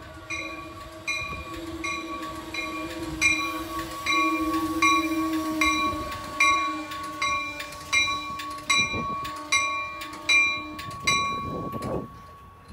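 Connecticut commuter train passing close by the platform: a steady high whine runs under regular sharp beats about twice a second. Both fade and stop near the end as the train clears the station.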